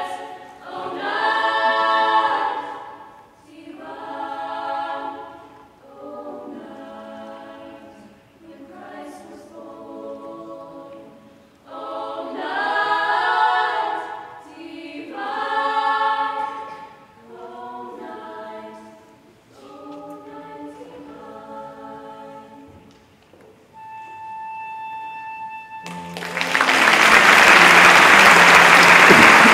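A small girls' choir singing in harmony, its phrases swelling and fading, ending on a soft held note. Applause breaks out near the end and is the loudest part.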